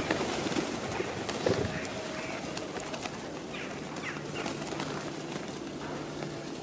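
A flock of feral pigeons landing and feeding on scattered seed. Wings flutter in the first second and again about a second and a half in, then many small taps as they peck at the ground, with a few short bird calls.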